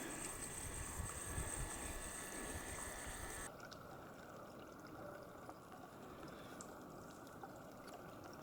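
Faint running water of a small stream, trickling steadily, with low rumbling on the microphone for the first few seconds.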